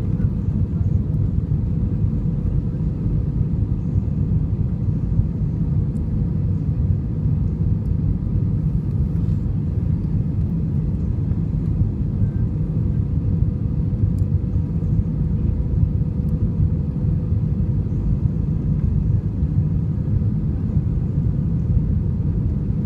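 Steady low rumble of an Airbus A320 heard from inside the passenger cabin, engine and airflow noise with a thin steady hum on top, unchanging throughout.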